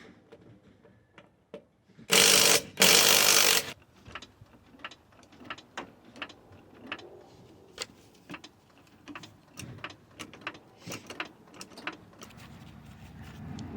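Two loud noisy bursts, about half a second and a second long, then a long run of irregular sharp metallic clicks and ticks from hand-tool work on the car.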